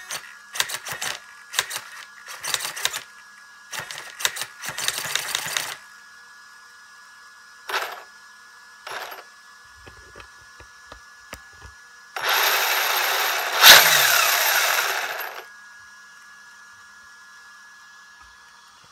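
RC car steering servo buzzing in quick short strokes as it snaps the front wheels from side to side, then twice more a little later. About twelve seconds in, a louder steady whirr lasts about three seconds.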